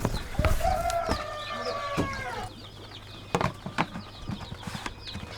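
Young chicks peeping over and over in short, high, falling chirps, with a longer drawn-out chicken call from about half a second in to about two and a half seconds, and a few sharp knocks.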